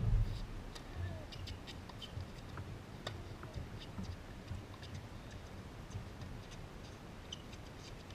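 Tennis rally on an outdoor hard court: sharp pops of racket strings striking the ball, the loudest right at the start and another about three seconds in. Fainter clicks from the far player's shots and court footwork fall in between, over a low steady background.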